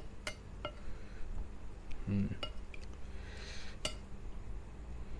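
A metal spoon clinking against a glass soup bowl as bone-soup broth is spooned out over rice: several separate sharp clinks, with a brief soft pour of liquid a little after three seconds in.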